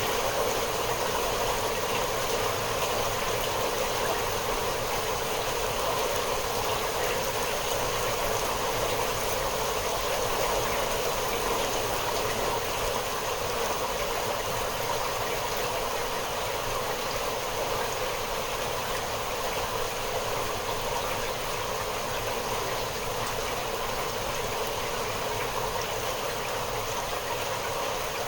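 Steady, constant rain falling with an even hiss, no single drops or thunder standing out.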